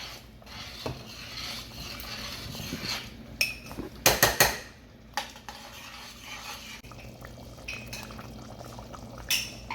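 Water pouring into a container, then a spoon clinking and stirring in it as chili seasoning is mixed with the water, with a few sharp knocks about four seconds in and again near the end.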